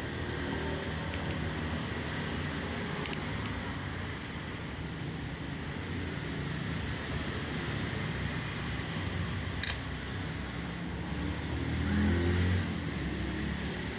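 Steady low background rumble, with a few short sharp clicks as the plastic clips of a phone's rear housing snap loose while it is pried open.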